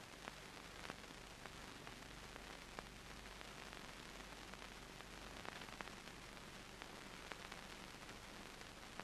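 Near silence: steady faint hiss of an old film soundtrack, with scattered faint clicks.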